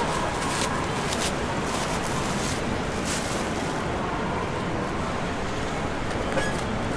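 Steady rushing background noise of a busy open-air market, with a few light knocks in the first three seconds.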